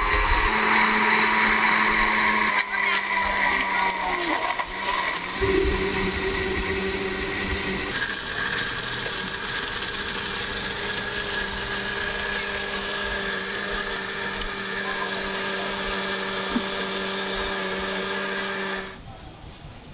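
Panasonic countertop blender crushing ice and watermelon into a smoothie. Its motor runs loudest and roughest in the first few seconds, then settles into a steadier hum, and cuts off shortly before the end.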